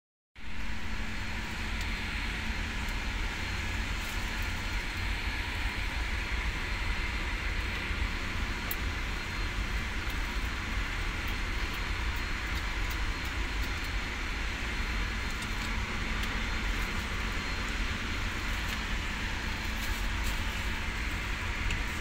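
Steady machinery noise: a low rumble with hiss and a faint constant hum, with a few faint clicks.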